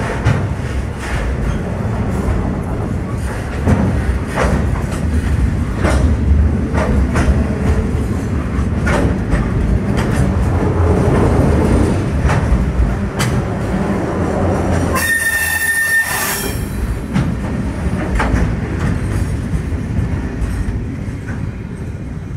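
A train running past: a steady heavy rumble, with wheels clacking over rail joints, and a brief high squeal about fifteen seconds in. It fades away near the end.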